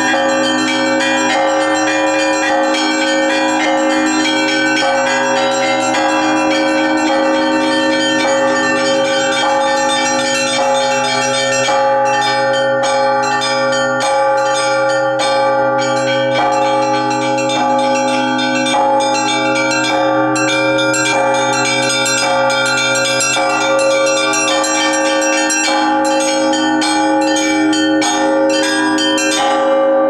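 Russian Orthodox church bell ringing (zvon), the fixed bells struck by hand-pulled clapper ropes: a fast, steady rhythm of strikes on the small bells over the long-sustained ring of the larger bells.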